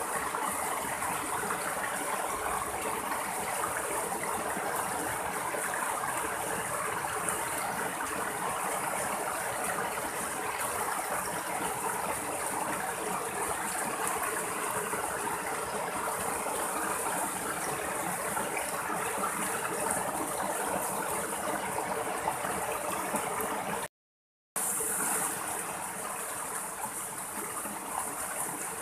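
Shallow rocky stream rushing and splashing steadily over small cascades between boulders. The sound cuts out completely for about half a second near the end, then comes back slightly quieter.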